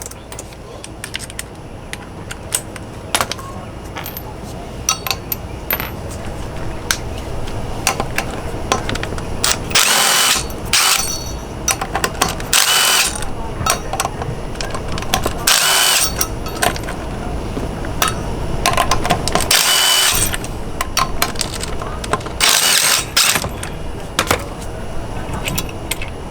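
Ratchet and socket backing out the bolts that hold the rear wheel of a Vespa GTS 300 scooter: five short bursts of rapid clicking, with scattered clinks and taps of metal between them.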